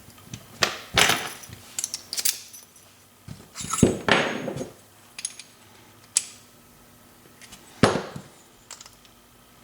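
Irregular metal clicks, clinks and knocks, with a couple of short scraping slides, as a Corbin Russwin lock cylinder is taken apart by hand and its plug and pins are worked out.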